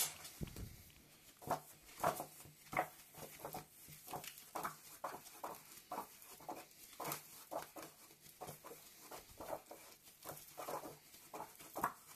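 Stiff pages of a pre-printed stamp album being turned by gloved hands one after another: a string of short, irregular paper rustles and flaps, with a sharp click right at the start.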